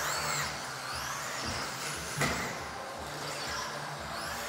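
Electric RC off-road buggy's motor whining, the pitch rising and falling as it is throttled on and off around the track, with a single sharp knock about two seconds in.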